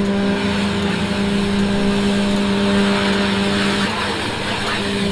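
A motor vehicle's engine running at a steady pitch, with a hiss over it; the hum thins out about four seconds in.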